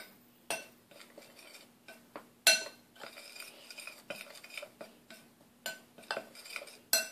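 Metal spoon stirring dry chickpea flour in a glass bowl: irregular clinks and scrapes of the spoon against the glass, the loudest about two and a half seconds in and again near the end.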